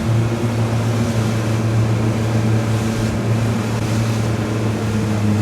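Motorboat under way: its engine runs with a steady low hum while wind and water rush past.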